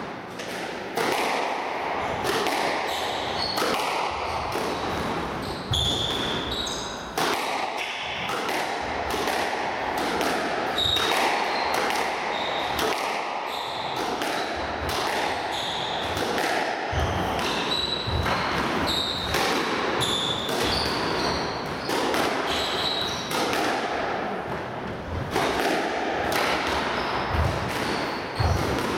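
Squash rally: repeated sharp cracks of the ball struck by rackets and hitting the walls, mixed with short high squeaks of court shoes on the wooden floor.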